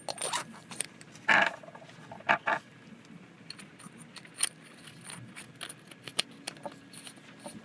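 Handling of an aluminium flashlight while AAA batteries go into its base: irregular clicks, scrapes and light metallic rattles, the loudest a little over a second in.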